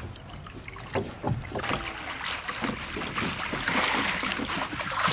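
River water sloshing and splashing as a bamboo basket of cut fish pieces is swished and rinsed in the shallows, growing louder about a second and a half in.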